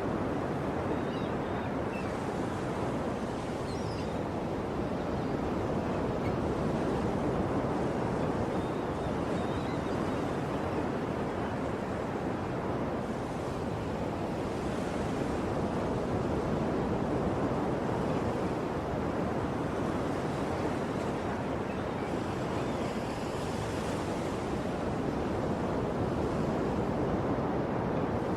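Sea waves surging and washing on a shore in a continuous, even rush that swells and eases slowly. A few faint, short high chirps sound over it near the start and again about ten seconds in.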